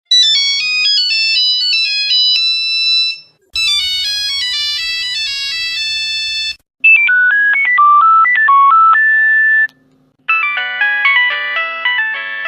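Nokia mobile phone ringtones played one after another: four short electronic melodies of about three seconds each, separated by brief silences.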